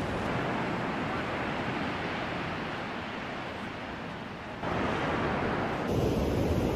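Sea waves breaking and washing up the beach, a steady rushing that steps louder about two thirds of the way through and again near the end.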